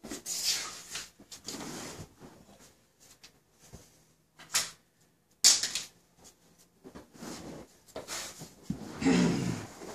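Handling noises as clamps are fitted to a heavy rug draped over a drying-rack pole: rustling of the rug with scattered clicks and knocks.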